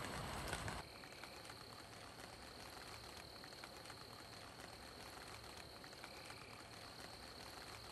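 Faint evening outdoor ambience: a steady high insect trill, with scattered light ticks. A louder rush of noise cuts off suddenly under a second in.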